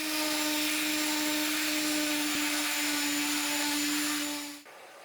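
A workshop power tool's electric motor running at a steady high speed, a constant whine over a loud rushing hiss, that cuts off sharply near the end.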